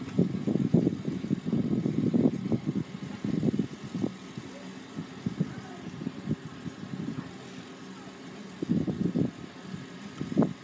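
An engine running at idle, heard as an uneven low rumble that is loudest for the first few seconds and swells again near the end.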